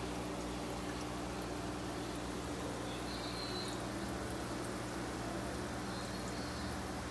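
Steady pouring and bubbling of water in a large indoor fish tub, over a constant low hum.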